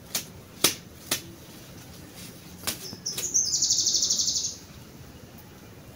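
A few sharp snaps as pumpkin leaf stalks are broken off by hand, then a bird's rapid high trill lasting about a second, a little past the middle.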